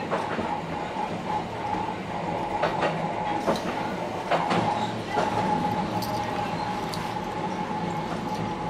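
Dubbed-in sound effect of an electric train running: a steady whine with wheels clicking over rail joints several times.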